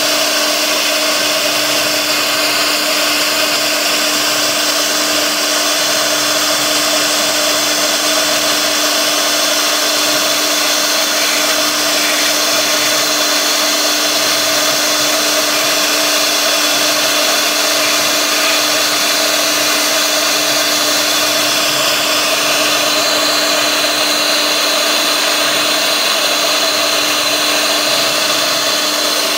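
CNC router spindle running with its bit carving grooves into a board: a steady motor whine over the noise of the cut.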